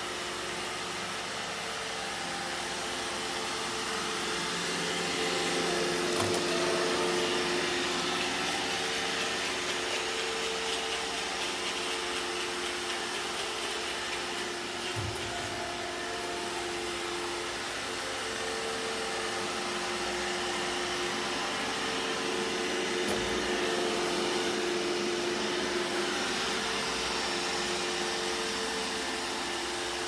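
iRobot Roomba e5 robot vacuum cleaning a wooden floor: a steady whir of its suction and brush motors, with a hum whose tones come and go as it moves. There are a few light knocks along the way.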